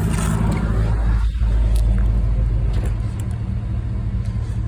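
Car subwoofers playing deep, loud bass notes inside the car, with a change of note about a second in.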